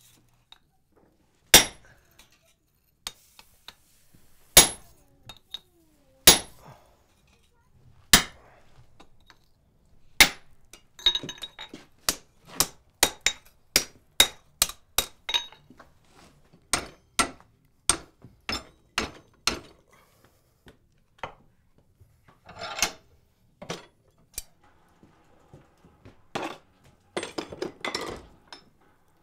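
Blacksmith's hand hammer striking hot iron on an anvil: a few widely spaced blows, then from about ten seconds in a quicker run of about two blows a second with some anvil ring, thinning out to scattered blows near the end.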